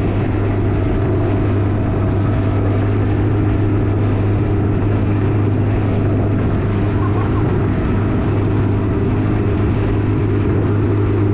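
Outboard motor of a small boat running at a steady speed, a constant low drone, with water rushing past the hull.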